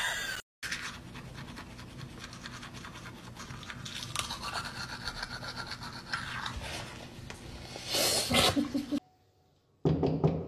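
A cat purring close to the microphone, a steady, fast, rattling purr, with a louder burst near the end.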